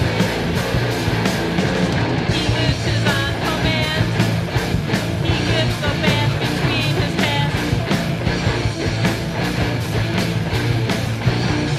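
Loud rock band playing a recorded song: guitar, bass and drums over a steady beat, with a wavering high melodic line from about two seconds in until about eight seconds in.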